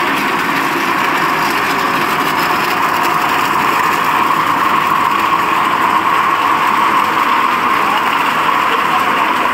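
Supari (areca nut) husk-peeling machine running steadily: a constant, even churning noise as the nuts tumble in its slotted metal drum and the husk is stripped off.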